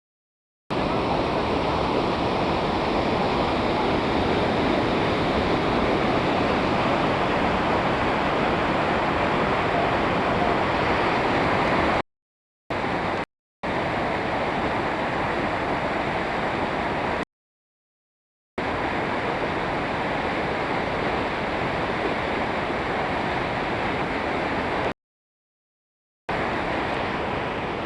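Waterfall with a strong current, a steady loud rush of water. It drops out to dead silence four times, for under a second to about a second and a half each.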